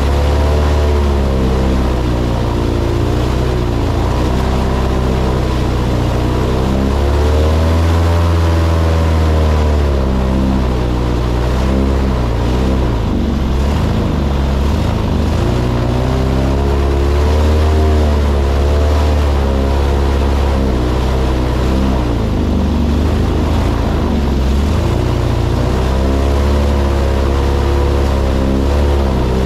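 Airboat engine and propeller running loud, the engine speed rising and falling again and again as the throttle is worked.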